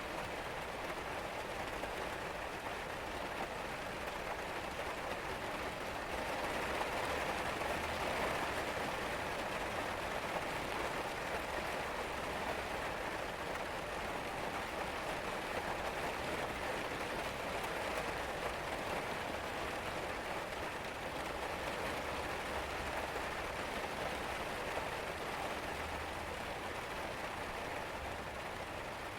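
Steady rain falling and pattering, a little heavier for a few seconds near the start.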